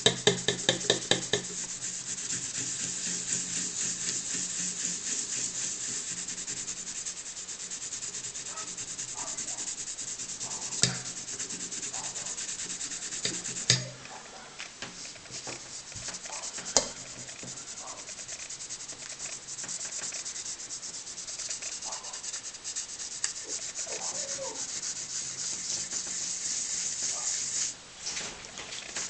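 Rapid back-and-forth rubbing as a metal miner's lamp is polished by hand. The stroking is continuous, with a few sharp knocks in the middle and a brief pause near the end.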